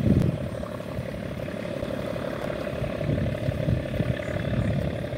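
Diesel engine of a loaded river sand barge running with a steady drone.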